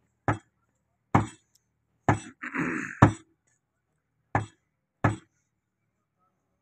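Heavy butcher's knife chopping beef on a wooden stump block: six sharp chops about a second apart, stopping about five seconds in. A short rough noise comes between the third and fourth chops.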